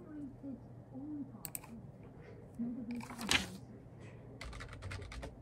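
Hands working at a reception desk: scattered small clicks, a louder brief rustle about three seconds in, and a quick run of taps near the end, typical of typing. Faint voices murmur underneath.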